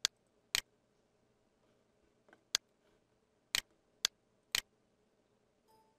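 Six sharp computer mouse button clicks, irregularly spaced. Near the end, a short electronic beep from the computer's speakers: the program's timer calling Beep() on each tick, once a second.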